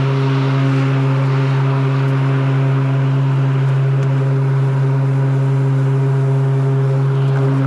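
Battery-powered walk-behind lawn mower running while cutting grass: the electric blade motor gives a steady low hum over a rushing hiss from the spinning blades and grass.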